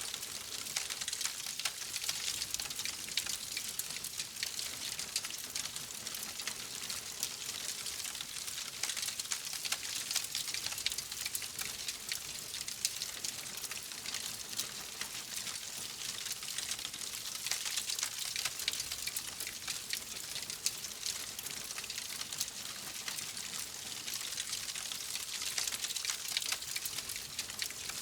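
Wood fire crackling steadily: a dense, continuous patter of small pops and snaps over a soft hiss, with no single loud crack standing out.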